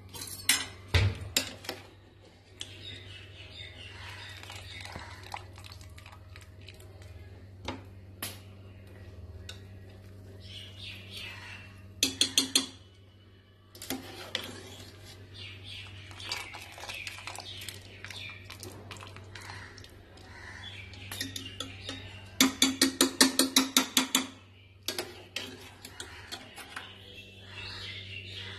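Metal spoon scraping and clinking against a pressure cooker and a pot of boiling rice as part-boiled rice is scooped out and layered. A quick run of taps comes about twelve seconds in, and a longer, louder run about twenty-two seconds in.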